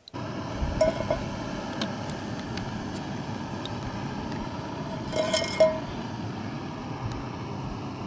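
Steady wind noise on the microphone, with a few light metallic clinks about a second in and again around five seconds in from a stainless steel camp pot and its wire handle being handled.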